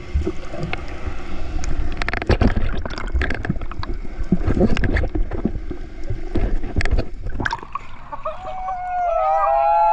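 Water splashing and bubbling around an action camera held by a snorkeler, dipping in and out of the sea, with many sharp splashes and a low rumble. Near the end the splashing gives way to smooth, wavering gliding tones at several pitches that grow louder.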